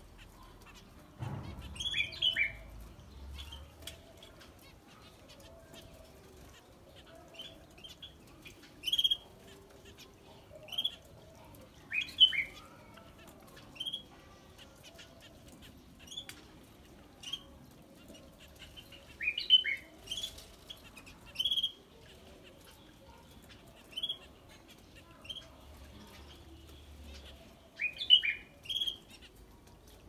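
Small aviary finches chirping: short, sharp calls every second or two, sometimes two or three in quick succession.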